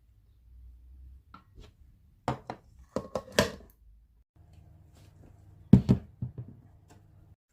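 Several sharp knocks and clatters of cookware being handled, in two clusters, over a faint low steady hum.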